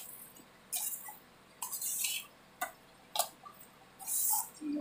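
Spatula scraping and stirring thick almond halwa paste in a steel kadai while it is roasted dry, in about five short scraping strokes roughly a second apart.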